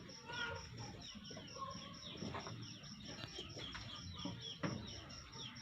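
Birds chirping repeatedly in short notes over a steady high pulsing tone that repeats about five times a second. Two brief sharp scuffs come about two seconds in and near the end.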